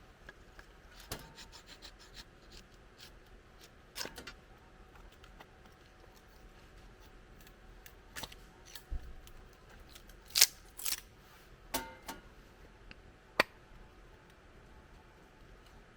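Scattered handling noises: sharp clicks and clinks, a quick run of small ticks about a second in, and a few short scrapes, the loudest about ten seconds in.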